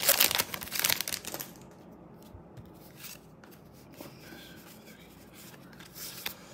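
Foil wrapper of a Pokémon booster pack being torn open, crackling and crinkling loudly for about the first second and a half, then faint rustling as the cards are slid out of the pack.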